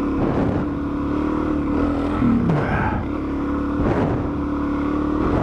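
Dual-sport motorcycle engine running under throttle on a muddy trail ride, its revs dropping about two seconds in, then holding steady again.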